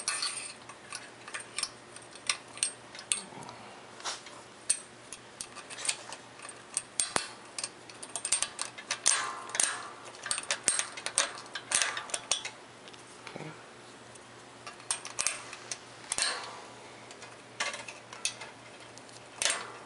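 Light metal clicks, taps and clinks as a coaster brake arm clamp with its small screw and nut is fitted by hand around a chrome bicycle frame tube, irregular and busiest in the middle.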